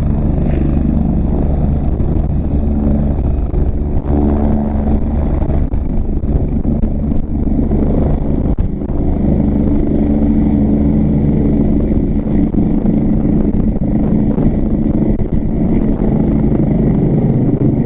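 Helicopter rotor and engine running steadily at high power as it lifts off and climbs with a water bucket hanging beneath it on a long line.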